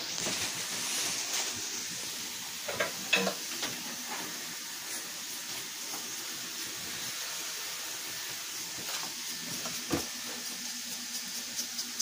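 Sliced potatoes frying in oil in a pan, a steady sizzling hiss, with a few short clinks or knocks about three seconds in and again near the end.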